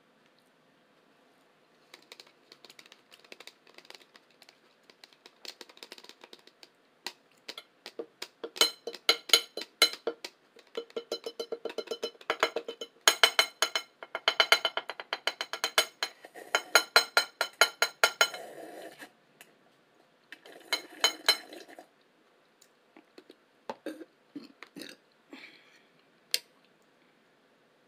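Close-up eating sounds: wet chewing and lip smacks in quick runs of clicks, heaviest through the middle stretch, with a shorter burst later.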